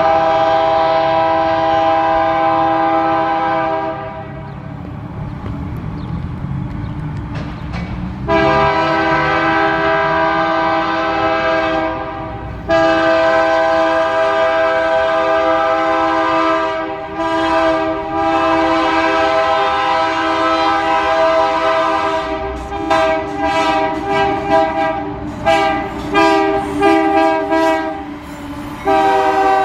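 GE AC4400CW diesel locomotive's air horn playing a horn show: a blast of about four seconds, a pause, another of about four seconds, a long one of about nine seconds, then a run of short toots. The locomotive's engine rumble runs underneath.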